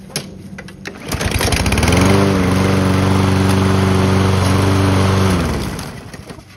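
The Briggs & Stratton single-cylinder engine of a Toro walk-behind lawn mower starts about a second in, rises to speed and runs steadily for about three seconds. Its speed then falls and it winds down to a stop. It starts and runs cleanly with a fresh air filter fitted in place of a filthy, fuel-soaked one.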